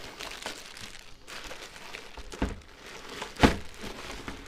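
Clear plastic wrapping crinkling and rustling as a radio-cassette player is slid out of its plastic bag, with scattered small clicks and one sharper knock about three and a half seconds in.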